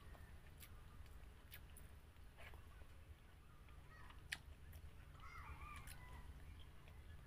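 Near silence: faint clicks of chewing and of eating with the fingers over a low steady hum, with a faint distant animal call about five seconds in.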